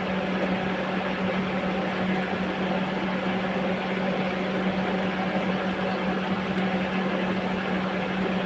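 A steady machine hum: a constant low drone over an even whirring noise, unchanging throughout.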